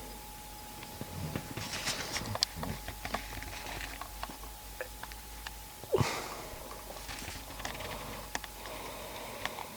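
A person sniffing and shifting about, with scattered small clicks and rustles and one short louder sound falling in pitch about six seconds in. A faint steady high tone runs underneath and stops at about the same moment.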